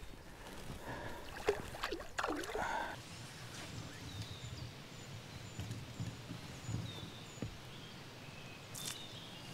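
Faint outdoor river ambience around an inflatable raft: a low steady background noise, with a few brief knocks and rustles in the first three seconds. Through the middle, a distant songbird's short high chirps repeat about every half second.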